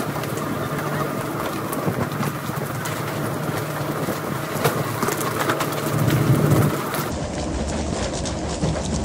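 Tuna fishing boat at work: the vessel's engine running steadily under a wash of water spray, with scattered clicks and knocks from poles and tuna landing and flapping on the deck. About seven seconds in the sound turns abruptly deeper and duller.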